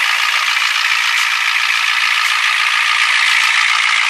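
Ford 7.3 IDI V8 diesel engine running steadily, heard up close in the open engine bay, with its water-pump-mounted fan spinning.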